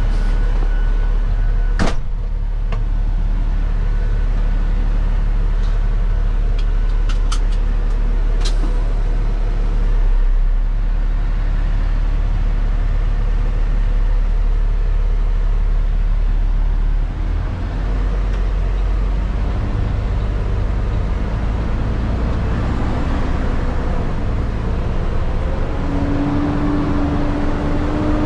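Heavy-duty tow truck's diesel engine running from inside the cab while it tows a truck, with a sharp click about two seconds in and a few more clicks around seven to eight seconds. Near the end the engine pitch rises as the truck pulls away down the street.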